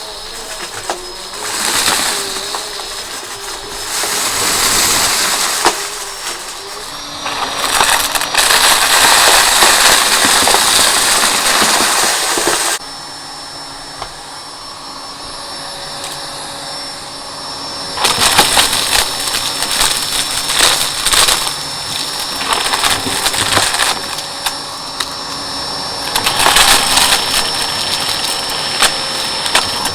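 Vacuum cleaner running with a steady high motor whine, its noise swelling and dropping over and over, with a quieter stretch of several seconds in the middle.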